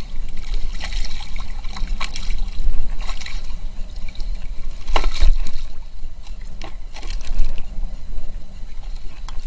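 Water splashing and trickling at the side of a kayak as a hooked fish is grabbed at the surface and lifted out by hand: irregular splashes, several a few seconds apart, over a low steady rumble on the microphone.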